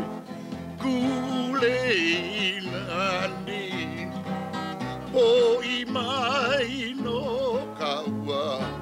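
A song sung with a wide, wavering vibrato to acoustic guitar strumming, the voice sliding between high held notes.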